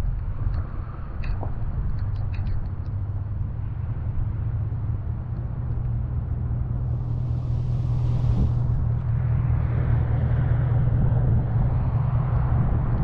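Wind buffeting the microphone of a camera mounted on a moving car, a steady low rumble, with a few faint clicks in the first few seconds and a brief hiss that swells and fades about eight seconds in.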